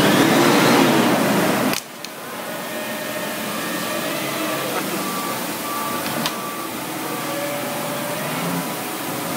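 Forklift truck running at low speed, a steady mechanical hum with faint whining tones. It is louder for the first two seconds, then drops off sharply, and a sharp click comes about six seconds in.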